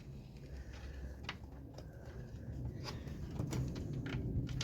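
A few light, scattered clicks and knocks of a plastic radiator fan shroud and its bolts being worked into place by hand, over a low steady hum.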